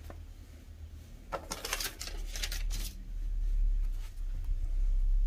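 Hands handling the tablet and its cardboard box packaging: a burst of rustling and scraping between about one and three seconds in, over a steady low hum that grows louder near the end.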